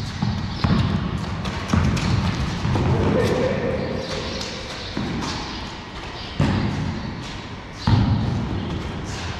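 A basketball bouncing and thudding on a concrete floor during a pickup game, irregular impacts a second or so apart that ring and echo around a large, bare hall. There is a lull in the bouncing a few seconds in, while players scramble for the ball.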